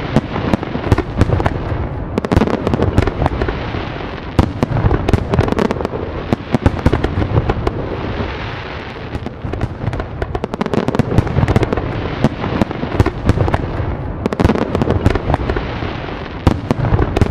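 Fireworks going off in quick succession: a steady run of sharp cracks and pops over a continuous low rumble of bursts.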